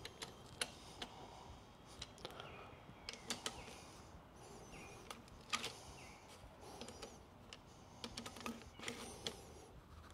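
Faint, irregular clicks and light metallic taps of hand tools at the motorcycle's front end as the triple-clamp pinch bolts are nipped up to hold the refitted fork.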